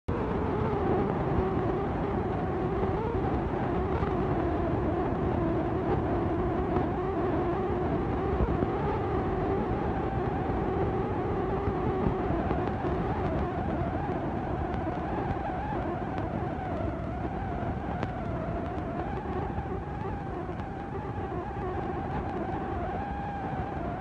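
Steady machine drone: a wavering hum over a low rumble, its lower tone fading out about halfway through.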